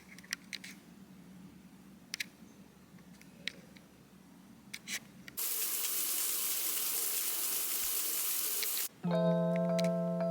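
A kitchen tap running hard for about three and a half seconds, starting and stopping abruptly, after a few light clicks over a low hum. Background music with held, chime-like chords comes in near the end.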